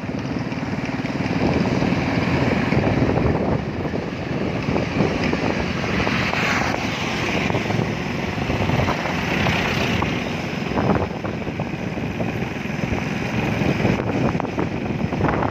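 Steady vehicle running noise with wind rushing over the microphone while on the move.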